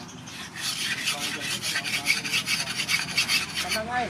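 Steel axe blade being rubbed back and forth on a flat sharpening stone: a quick, even run of rasping strokes, several a second, that starts about half a second in and stops just before the end.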